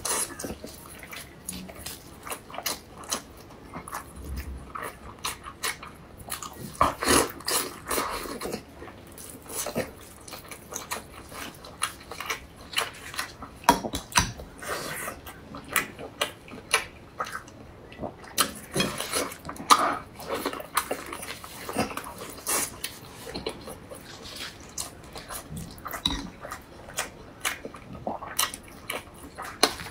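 Close-up eating sounds: wet chewing and lip smacking on braised meat, with many irregular sharp clicks, the squelch of sauce-coated meat torn apart in plastic-gloved hands, and a spoon scraping in a jar of chili sauce.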